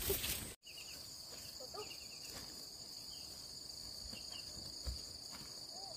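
Insects keeping up a steady high-pitched drone, with a few faint short calls lower down. It begins abruptly about half a second in, after a short stretch of louder knocks and rustling.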